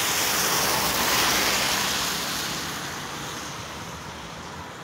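A car driving past on a rain-soaked road, its tyres hissing over the wet surface. The sound is loudest about a second in, then fades as the car moves away.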